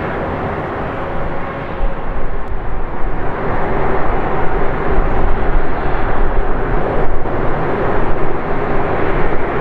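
Airbus A330-200's Rolls-Royce Trent 700 turbofan engines running at high thrust for the departure, a deep roar with a steady whine on top, growing louder about two seconds in.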